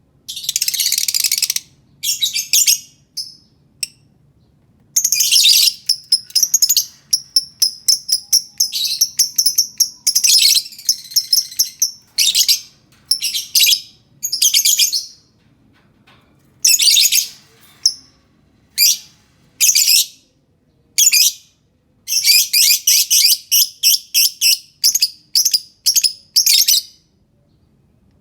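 Lovebird singing: shrill, rapid chattering chirps in runs of about one to two seconds, broken by short pauses.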